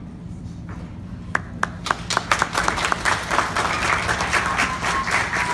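Audience applause: a few separate claps about a second in, swelling into steady clapping by about two seconds in.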